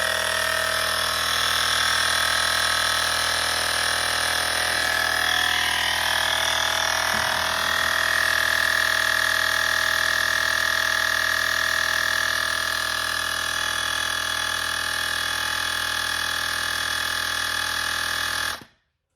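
SOWINK 150 PSI cordless tire inflator's electric compressor running steadily while filling a car tire, then cutting off suddenly near the end as it reaches its preset 40 psi and shuts itself off.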